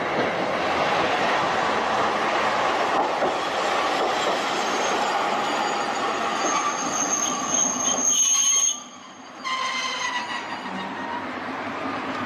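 Hankai Tramway Type 701 streetcar running along street track with a steady rumble. High-pitched wheel squeal sets in about six seconds in. The sound drops out suddenly for about half a second about nine seconds in, and the squeal carries on for a moment after.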